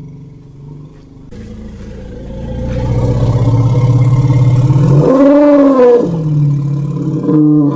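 Dinosaur roar sound effect made from elephant vocalisations. A low rumbling growl swells from about a second in, breaks into a higher bellow that rises and falls about five seconds in, then drops back to the growl, with a short higher call near the end.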